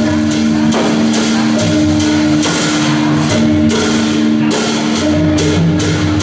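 Traditional northern Thai percussion music: cymbals clashing and a drum beating in a steady rhythm over sustained, ringing gong tones.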